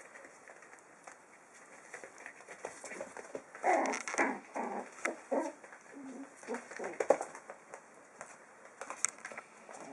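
Five-week-old puppies playing: a quick run of short yips and yaps about four seconds in, a couple more a little later, over light scuffling and scratching of paws.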